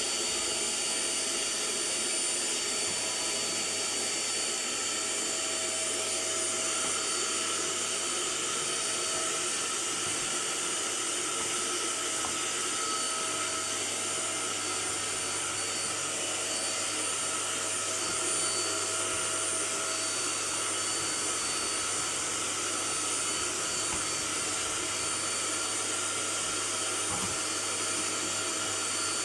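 Vacuum cleaner running steadily: a constant rush of air with a high whine over it.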